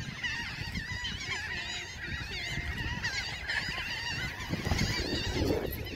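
A flock of birds calling over one another, many wavering cries overlapping without a break, with wind rumbling on the microphone.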